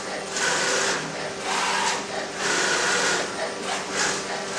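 Filotec CNC scoring machine for circuit-board panels running, its X and Y axes and panel-turning device moving: three or four bursts of mechanical whine and hiss, each under a second long.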